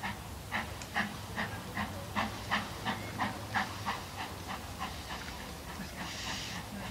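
Two steam locomotives, BR Standard 4MT 2-6-4T 80079 and Ivatt 4MT 2-6-0 43106, reversing past their train. Their exhaust beats come about three a second, slowly quickening, and fade after about four seconds. A short burst of steam hiss follows near the end.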